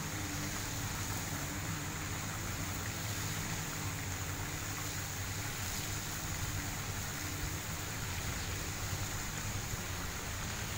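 Fountain jets spraying and splashing steadily into a pond, over a steady low mechanical hum.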